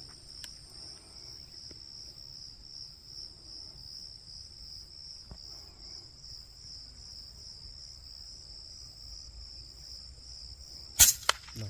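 Insects chirring in a steady, high, finely pulsing trill. About eleven seconds in, a loud sharp knock, followed quickly by a fainter one.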